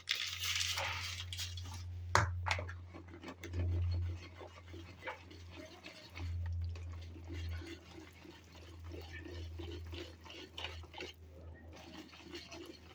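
Thick cake batter of blended dates, flour and eggs being stirred in a mixing bowl: wet, repeated stirring strokes, with one sharp knock against the bowl about two seconds in.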